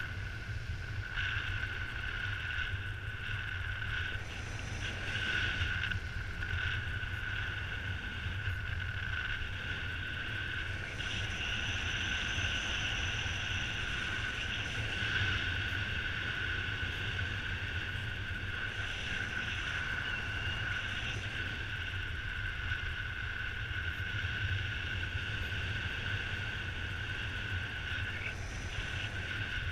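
Rush of airflow over the camera microphone in paraglider flight: a steady low rumble with a constant high whistling tone above it.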